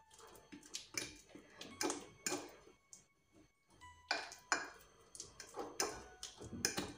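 Fork mashing a banana in a dish, its tines clinking and scraping against the dish in a string of irregular strokes.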